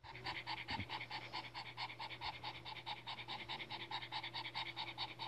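Pug panting rapidly with its mouth open, short breathy pants in a quick, even rhythm of about six a second.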